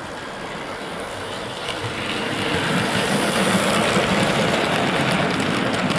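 Dapol Class 22 OO gauge model locomotive hauling a short train of milk tank wagons along the track, its running noise getting louder about two seconds in as the train comes past.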